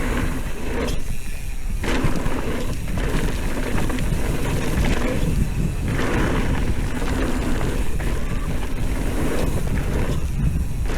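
Mountain bike being ridden down a dirt trail: steady rush of wind and tyre noise, with rattling from the bike.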